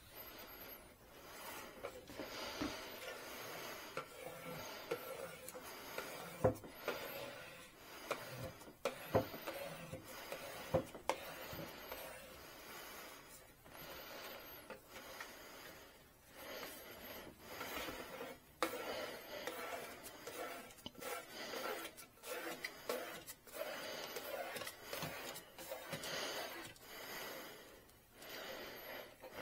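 Perforated vinyl decal sheet being handled and rubbed: irregular rubbing and scraping strokes with scattered sharp clicks and a few short, high squeaks.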